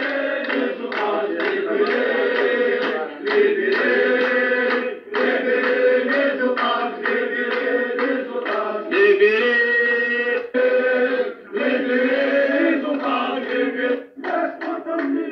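A crowd of men chanting protest slogans together in a steady rhythmic chant, heard as a thin, tinny playback through a phone's small speaker.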